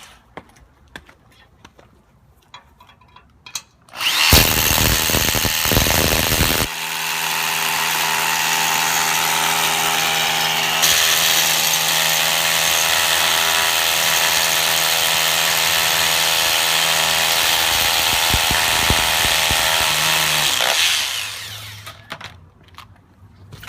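A hammer drill boring into the ground for the post anchor in a loud, rough burst a few seconds in. It is followed by a long, steady electric motor run that winds down near the end.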